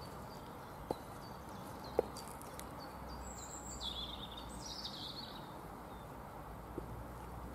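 High-heeled pumps clicking on an asphalt path: two sharp heel strikes about a second apart near the start and a few more near the end. Birds chirp in between, over a steady outdoor background.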